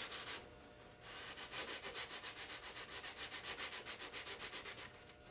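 Sandpaper rubbed by hand over dried filler putty on a plastic model's saucer: rapid back-and-forth strokes, about six a second. They start about a second in and stop shortly before the end.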